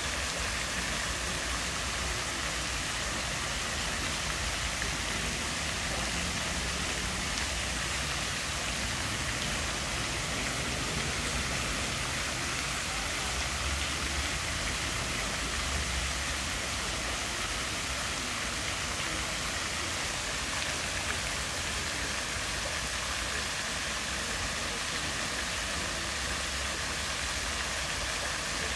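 Many small fountain jets spraying water that falls and splashes into a pool: a steady hiss of falling water. A low rumble runs underneath.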